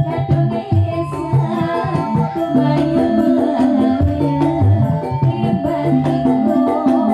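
Live Banyumasan music for a lengger dance: electronic keyboard with drums and pitched percussion, and a singing voice, in a steady rhythm.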